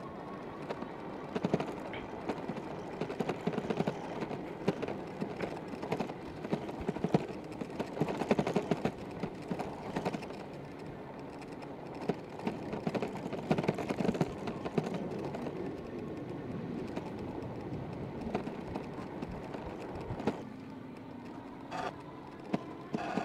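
Riding noise from a Sur Ron X electric dirt bike on a rough dirt track: the tyres and chassis rattle over ruts and loose dirt, giving a steady rough rush with many small knocks. The rattle eases near the end.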